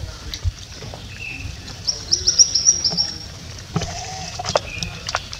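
A quick run of about eight high chirps near the middle, from a small animal, with a few short lower calls and scattered clicks around it.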